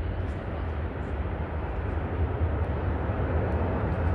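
Boeing 777-300ER on final approach, its GE90 engines a steady low rumble.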